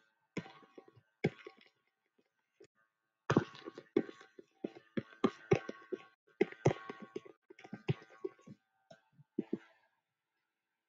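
A man's voice in short, broken muttered fragments, with silent gaps between them and denser stretches through the middle.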